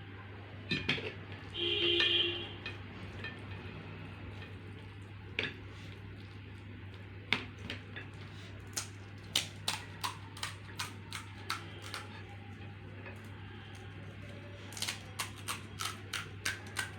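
Utensils clinking and tapping on dishes in a string of sharp, irregular clicks, quickening in places, with a short pitched tone about two seconds in and a steady low hum underneath.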